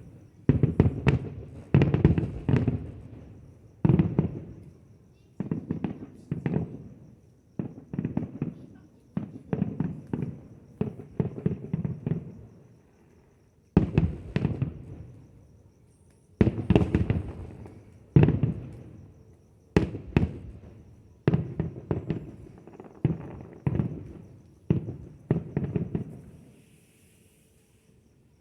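Fireworks going off in a steady barrage, a sharp bang every second or two, each trailing off in a rumbling echo, with a few brief lulls.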